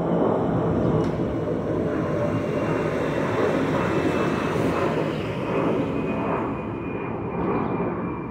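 Twin-engine jet airliner passing overhead: a steady engine rumble with a faint high whine that slowly drops in pitch, easing off a little near the end.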